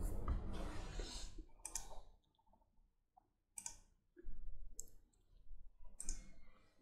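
Computer mouse clicks and rustling at a desk: a noisy stretch in the first two seconds, then a few short bursts with near silence between them.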